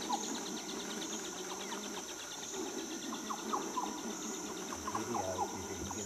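Insects calling in a steady chorus: a high buzzing with a fast, even pulsing trill, with a few short bird chirps scattered through it. It cuts off abruptly at the end.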